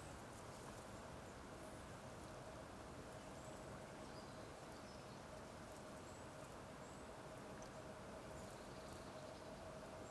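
Faint, steady outdoor background noise with a low steady hum and a few faint, short high chirps.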